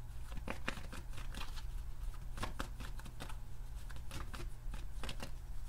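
A deck of tarot cards being shuffled in the hands: a run of quick, irregular card flicks and slaps, with a steady low hum underneath.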